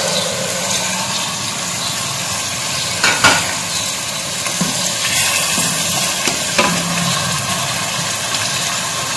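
Sliced onions frying in oil in an aluminium pot, sizzling steadily, with freshly added chopped tomatoes and green chillies stirred in with a wooden spatula. A few light knocks of the spatula against the pot, the clearest about three seconds in.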